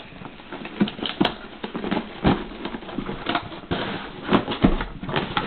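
Cardboard box being handled and opened by hand: irregular rubbing and scraping of cardboard, with sharp knocks and clicks scattered through.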